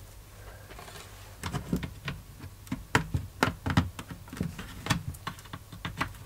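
Irregular light clicks and knocks of small hard parts being handled, starting about a second and a half in and going on until near the end, with a low hum underneath.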